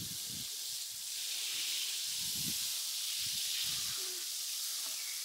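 Water spraying steadily from an outdoor shower and falling on a child standing under it: an even hiss.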